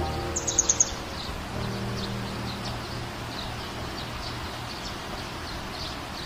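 Birds chirping, with a quick run of about five sharp chirps just after the start as the loudest sound.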